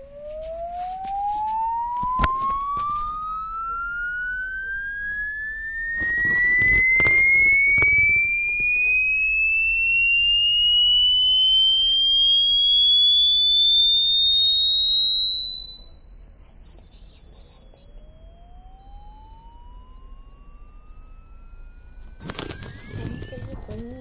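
Smartphone speaker playing a single pure test tone that glides smoothly and steadily upward in pitch, from a low hum to a high whistle: a tone-generator frequency sweep. Brief handling rustles and knocks come through about two seconds in, again around six to eight seconds, and near the end.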